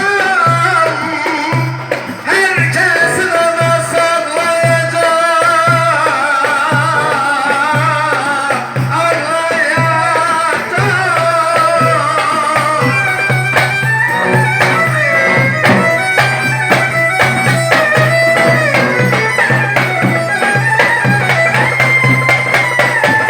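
Turkish barak folk music: a wavering, ornamented melody over a steady low pulsing beat, with a thicker run of quick sharp strokes from about halfway through.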